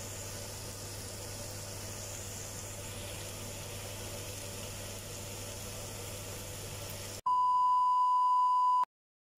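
Steady low hiss and hum over a pan of freshly cooked carrot, onion and ground-chicken filling steaming on a gas stove. About seven seconds in, a loud, steady 1 kHz test-tone beep from a 'Please stand by' card sounds for about a second and a half, then cuts off to silence.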